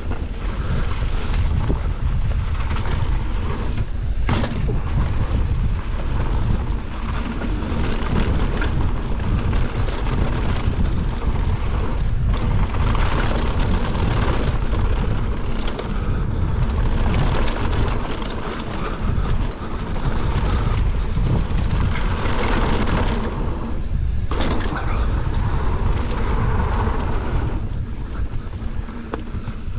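Mountain bike descending a dirt trail at speed: wind buffeting the microphone with a steady rumble, over the rolling noise of the tyres on dirt, with occasional knocks and rattles from the bike over bumps.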